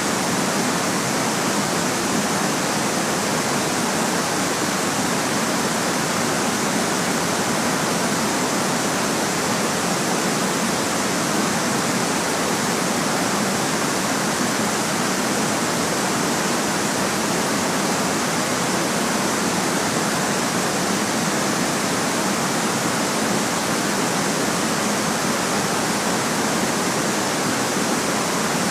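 Steady white noise: an even, unchanging hiss with almost no deep rumble.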